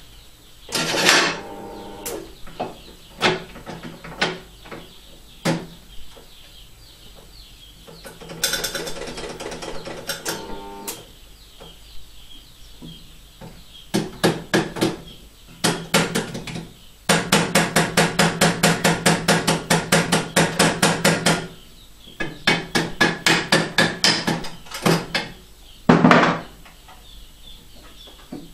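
Hammer tapping on a metal drill-press vise that holds a nut: scattered single blows at first, then a fast run of light taps for several seconds past the middle, and more taps near the end.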